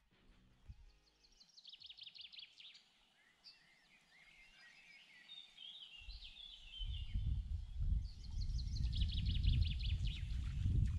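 Songbirds singing: a rapid trill twice, with warbling phrases between. From about six seconds in, a low, uneven rumble rises and stays, louder than the birds.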